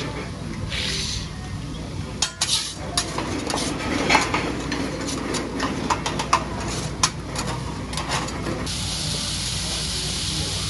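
Scattered clinks and taps of metal utensils on dishes, then about nine seconds in a steady sizzle starts: chicken and scallops searing on a hibachi flat-top griddle.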